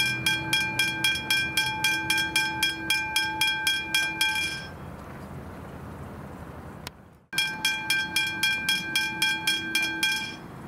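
Westinghouse Hybrid Bell Generation 2 on a railway level crossing ringing rapidly, about three to four strikes a second, and stopping about four and a half seconds in as the crossing deactivates. After a brief break it rings again for about three seconds near the end.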